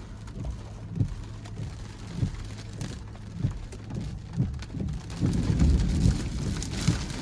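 Thunderstorm wind gusting across the microphone with rain, a low rumbling buffeting that grows louder and fuller about five seconds in as the storm's gust front arrives.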